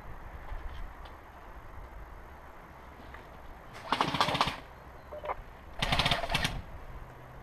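Two short full-auto bursts from an airsoft gun, each a rapid string of shots lasting about half a second, the second coming about two seconds after the first.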